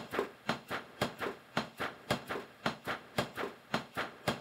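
A steady rhythm of sharp percussive clicks, in pairs, about two pairs a second.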